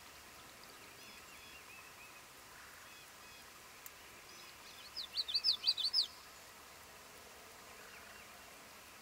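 A common yellowthroat sings about five seconds in: one quick song of about nine sharp, rapidly repeated sweeping notes lasting about a second. Faint chirps of other birds come and go over a soft steady outdoor background.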